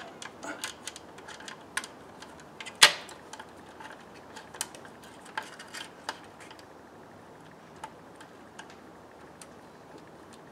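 Scattered small clicks and taps of screws and fingers against a plastic engine oil baffle plate as its screws are set and hand-threaded. One sharper click a little under three seconds in; the clicks grow sparser in the second half.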